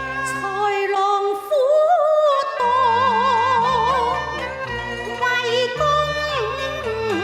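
Cantonese opera music: a melody held on long notes with wide vibrato, gliding between pitches, over a sustained low accompaniment.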